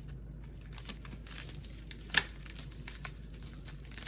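Packaging of a computer-part box being handled and opened: crinkling and tearing of cardboard and plastic wrap, with one sharp loud rip or snap about two seconds in.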